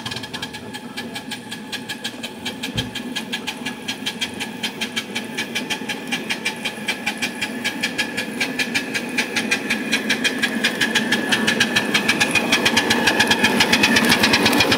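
Ridable live-steam model locomotive chuffing, its exhaust beats steady and getting louder as it approaches, with the beats coming closer together near the end.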